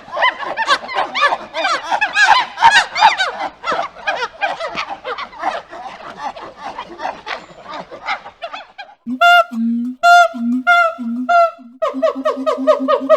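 A troop of monkeys chattering and shrieking, many calls overlapping, for about nine seconds. Then a different animal gives a series of short, evenly pitched honking calls that quicken into a rapid run near the end.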